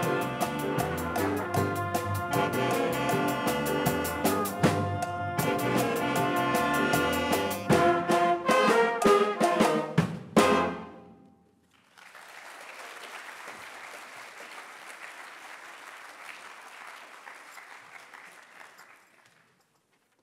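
Jazz big band of saxophones, trumpets, trombones, keyboard, bass guitar and drum kit playing, ending the piece with a run of loud accented ensemble hits and a final chord about ten seconds in. After a short pause the audience applauds for about seven seconds, then it fades out.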